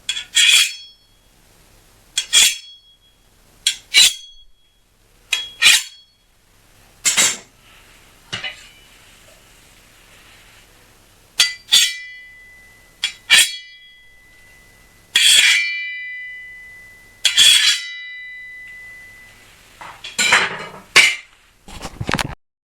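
Steel kitchen-knife blades struck and scraped against each other to mimic sword clashes: a series of separate sharp metallic hits and swipes, one every second or two. Two of them, around the middle, leave a long ringing tone that fades over a few seconds. Near the end comes a quick cluster of clashes with a lower thud.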